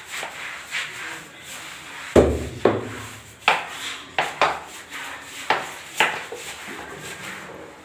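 Scrubbing on a hard floor: irregular, rasping strokes of a brush or scrubber, each one sweeping from high to low, the loudest about two seconds in.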